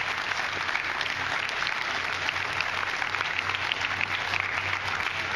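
A large audience applauding, many hands clapping in a steady, dense patter.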